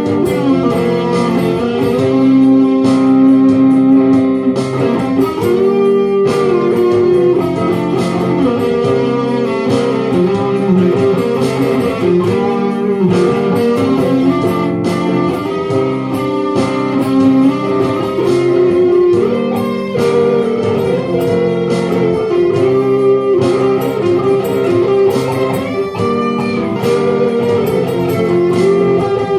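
Guitar playing an instrumental passage without singing: a continuous run of quickly picked notes over sustained chords.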